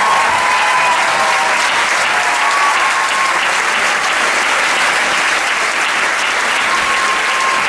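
Audience applauding steadily, a dense even clapping with no beat.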